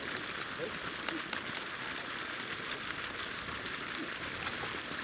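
Water splashing and lapping as a man and a capybara move about together in a lagoon: irregular small splashes over a steady hiss.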